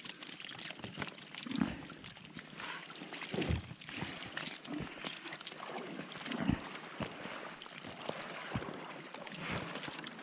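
Vendace being picked by hand out of a wet seine net: the wet slapping and patter of fish and mesh, with a few soft thumps, the loudest about three and a half and six and a half seconds in.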